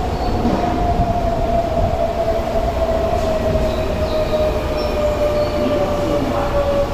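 Toei 6300 series subway train pulling into an underground platform and braking. Its motor whine slides slowly down in pitch as it slows, over a steady rumble of wheels on rail.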